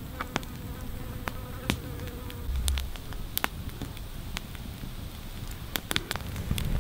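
A flying insect buzzing close by for the first couple of seconds, with scattered sharp clicks and crackles as roasted grasshoppers are handled and pushed onto a wooden skewer.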